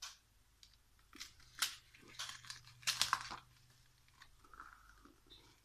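A page of a hardcover picture book turned by hand: several crisp paper rustles and snaps, loudest about three seconds in, then a softer rustle as the page settles.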